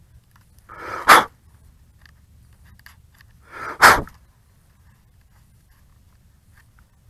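Two sharp puffs of breath blown at close range, about three seconds apart, each swelling briefly and then ending in a loud blast: blowing a piece of grass out of the quadcopter's camera.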